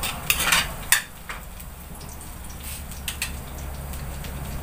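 Metal ladle scraping and clinking against a wok while onion and garlic are stirred in hot oil, with several quick scrapes in the first second, then a faint frying sizzle and a few light clinks.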